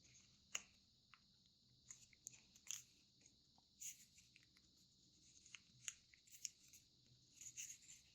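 Faint crinkles and crisp little crackles of origami paper being handled and creased by hand, coming in scattered short bursts over a steady faint hiss.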